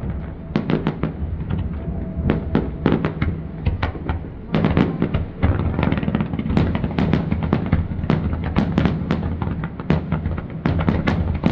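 Fireworks display: aerial shells bursting in a rapid run of bangs and crackles. The bursts come sparser at first and thicken into near-continuous popping about four and a half seconds in.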